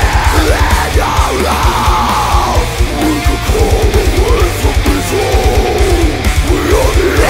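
Deathcore song: heavily distorted electric guitars and rapid kick-drum hits under harsh screamed vocals.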